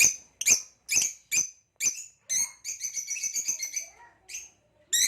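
Nyasa (Lilian's) lovebirds calling: a string of sharp, high chirps about two a second, breaking into a fast chattering run about two seconds in, then a few more single chirps.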